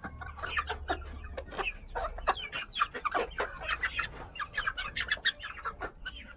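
A small flock of chickens clucking and chirping, many short calls coming quickly and overlapping one another.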